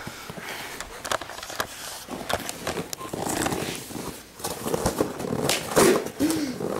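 Packaging of an opened shipping box being handled: scattered scraping, rustling and sharp clicks.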